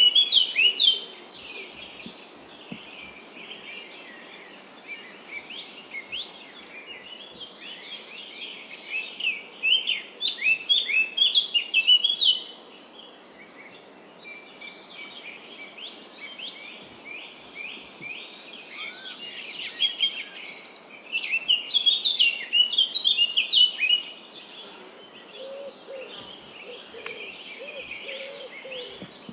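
Birds singing: bouts of rapid, high chirping notes that swell and fade over a faint steady background hiss, with a lower warbling call joining near the end.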